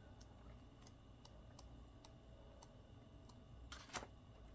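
Near silence broken by faint, sharp clicks about every half second and a brief louder rustle near the end, from printed photos being handled and flipped through.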